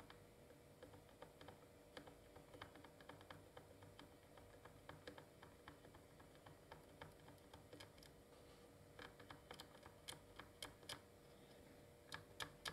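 Faint, irregular small clicks and ticks as a soldering iron tip works along the legs of a 3dfx chip, reflowing loose pins with the solder already on them. The clicks come several a second and grow louder about nine to eleven seconds in and again near the end.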